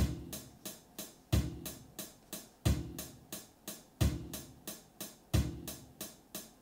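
Sampled drums played by a step-sequenced drum machine built in Cables.gl: a kick drum about every 1.35 seconds with a hi-hat ticking about three times a second between the kicks, looping in a steady mechanical rhythm.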